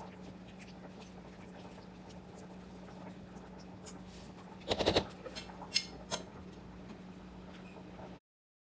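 Cooking sounds over a steady low hum: a short burst of clattering clicks about five seconds in, then a few lighter clicks. The sound cuts off abruptly near the end.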